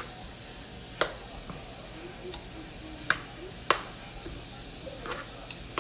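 A spoon stirring cauliflower and bacon in a frying pan, knocking sharply against the pan several times over a steady low sizzle.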